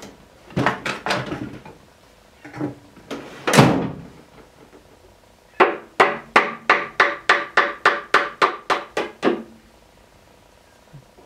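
About fourteen quick, even blows of a soft-faced mallet on the end of a lathe spindle, three to four a second, each with a short metallic ring: the spindle is being knocked through the headstock to get at its worn outboard bearing. Before that, tools clatter in a tool drawer and there is one loud scrape.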